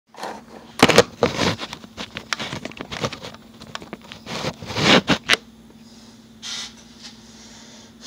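Handling noise from a phone being set up to record: a quick run of knocks, taps and rustles in the first five seconds or so, then a single soft rustle, over a steady low hum.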